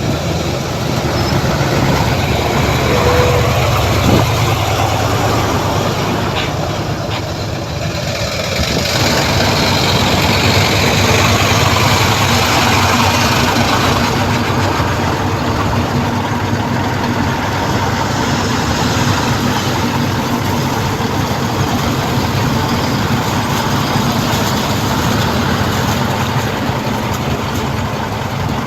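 Heavy diesel earthmoving machinery, bulldozer and dump trucks, running steadily, with the engine noise growing fuller and harsher about a third of the way through.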